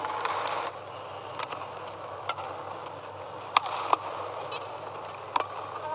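Badminton rackets striking a shuttlecock during a rally: about five sharp cracks spaced roughly a second apart, over steady arena ambience.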